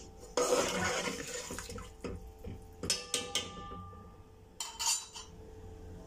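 A metal slotted spoon stirring chicken and freshly added water in an aluminium degchi, the liquid sloshing, with a few clinks of the spoon against the pot that ring briefly about three seconds in.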